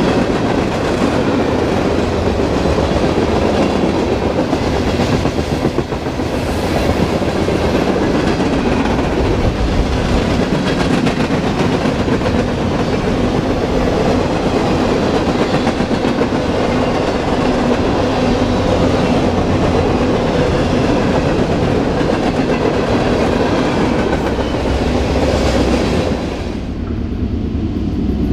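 Freight train of covered hoppers, tank cars and boxcars rolling past close by: steady loud rumble and clatter of steel wheels on the rails. Near the end it cuts suddenly to a quieter, duller rumble of a diesel locomotive approaching in the distance.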